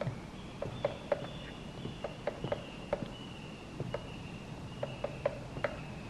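Japanese green woodpecker pecking into a hole in tree bark: sharp wooden taps at an uneven pace, about fifteen in six seconds, some in quick runs and some after short pauses.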